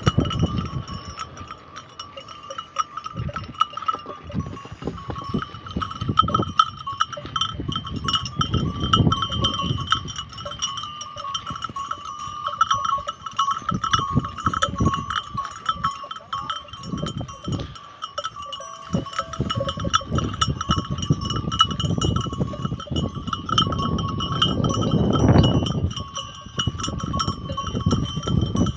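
Bells worn by a grazing flock of sheep clink and jingle continuously, holding a steady ringing tone. A low rumbling noise swells and fades underneath, loudest about twenty-five seconds in.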